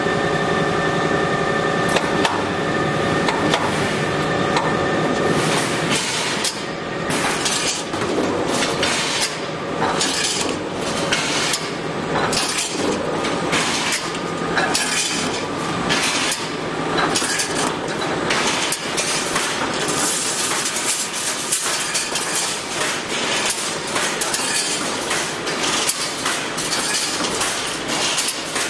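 Full automatic wire mesh panel welding machine running: rapid, repeated metallic clanks and clinks as the wires are fed and welded, over a steady machine noise. A few steady tones hum under it for the first several seconds.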